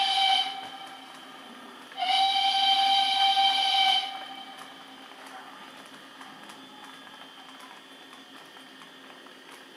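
DCC sound decoder in an H0 model of an SNCF 141R steam locomotive, sounding a steam whistle through its small speaker. The tail of one blast ends just after the start, and a second steady blast of about two seconds comes about two seconds in. Fainter running sound follows.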